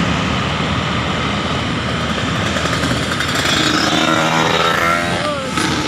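Tour bus engine running loudly with traffic noise. Held pitched tones, some gliding up and down, join about three and a half seconds in.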